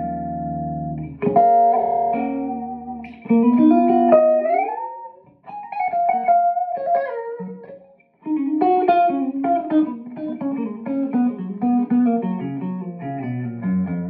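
Clean electric guitar improvising single notes and chords through a Komet 60 valve amp with KT66 power tubes into a Hiwatt 4x12 cabinet. The guitar is a Tokai Stratocaster-style. Some notes are bent or slid upward about four seconds in, and the playing pauses briefly twice.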